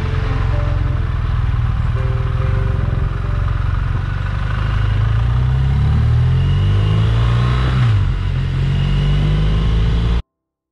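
Motorcycle engine running on the road, its pitch rising as it accelerates from about four seconds in, then dropping suddenly and running steady; the sound cuts off abruptly near the end.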